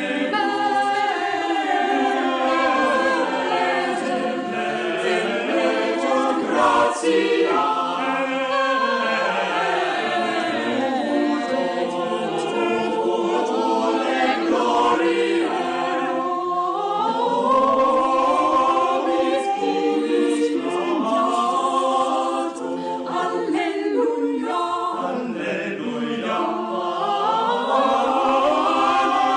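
Choral music: a choir singing unaccompanied in long held harmonies.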